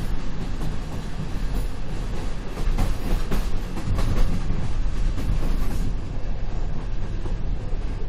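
Passenger train running, heard from inside a coach: a steady rumble of wheels on rail, with a short run of sharp wheel clacks in the middle.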